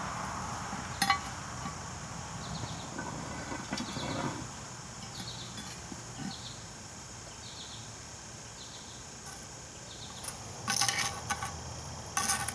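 Metal clinking of tongs and a lid lifter against a cast-iron Dutch oven lid: one sharp click about a second in, then a run of clanks near the end as the lid is handled.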